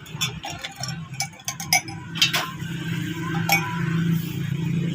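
Glassware and utensils clinking and tapping: a quick run of small clinks over the first two and a half seconds, then one more about three and a half seconds in, over a steady low hum.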